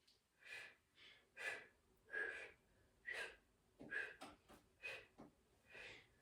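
A woman's short, sharp exhales puffed out through the mouth in quick succession, roughly one to two a second, as she holds a core-bracing plank hover.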